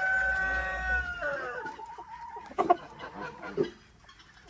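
Rooster crowing: the end of a long, steady crow that holds its note and then falls away in pitch about a second and a half in. Two short, sharp calls follow.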